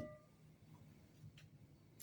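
Near silence: a faint ringing tone dies away at the very start, and a faint click sounds about one and a half seconds in.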